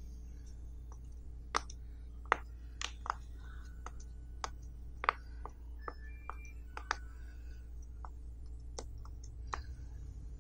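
Silicone pop-it fidget toy with its bubbles pressed through one by one, giving short sharp pops at uneven intervals, roughly two a second, some with a brief ringing note.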